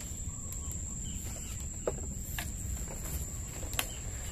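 Insects buzzing steadily at one high pitch, over a low rumble of outdoor background noise, with a few faint clicks.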